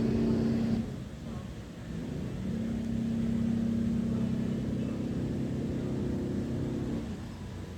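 A steady low mechanical hum that drops away about a second in and returns a second and a half later.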